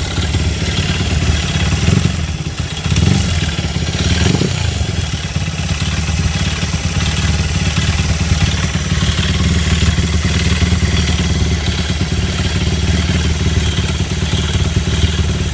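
Honda XR100 Motard's single-cylinder four-stroke engine idling with a regular rattling noise, revved briefly a few times between about two and four seconds in. The owner suspects the crankshaft.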